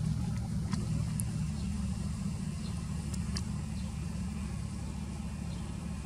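Steady low rumble of an idling motor vehicle, with a few faint high chirps over it; no siren tone is heard.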